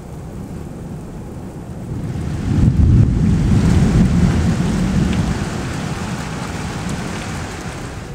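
Thunder rumbling over steady rain. The deep rumble builds about two seconds in, is loudest for a couple of seconds, then slowly fades away.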